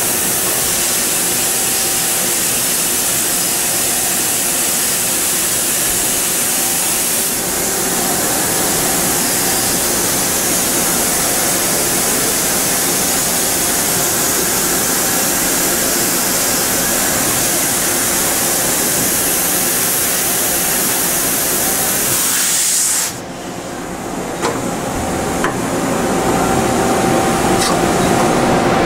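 Okuma MC-50H CNC horizontal machining center running with a loud, steady hiss over a hum. The hiss cuts off suddenly about 23 seconds in, leaving the machine's steady hum and a few light ticks.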